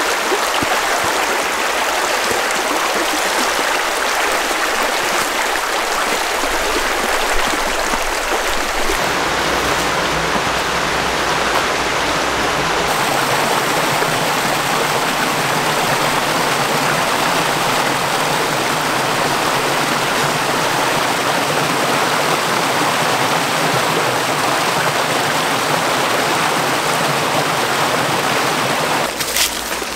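Small mountain creek rushing over rocks in a shallow cascade: a steady, loud rush of water, its low rumble shifting a couple of times.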